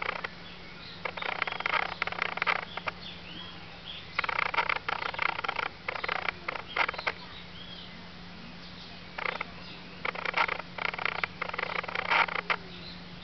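Sábalo (Prochilodus lineatus) sucking at the water surface as it feeds: bursts of rapid wet smacking clicks, each a second or so long, with short pauses between them. Faint bird chirps sound now and then.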